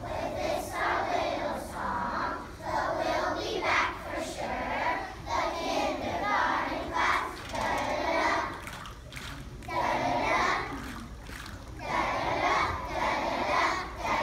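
A group of young children singing together in unison, phrase by phrase with short breaks between lines.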